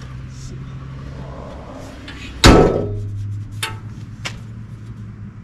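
An aluminum side-by-side door on a Honda Talon slammed shut once about halfway through, a sharp bang with a short metallic ring, followed by two light clicks. A steady low hum runs underneath.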